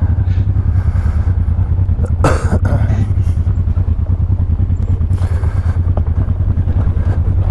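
Honda Transalp 600's V-twin engine idling steadily, close to the microphone, with two short bursts of noise about two and five seconds in.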